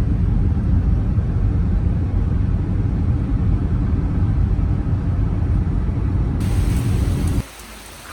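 Steady low road and engine rumble inside a moving car. Near the end it cuts off suddenly, giving way to the quieter even hiss of light rain.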